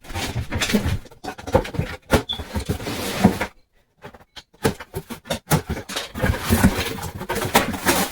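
Cardboard box being handled and opened: irregular scraping, rustling and knocks, broken by a moment of complete silence about three and a half seconds in.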